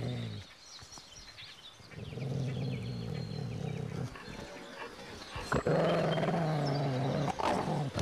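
A large dog growling, deep and throaty, in several long rumbles with short breaks between them. A short sharp click cuts in twice during the later growl.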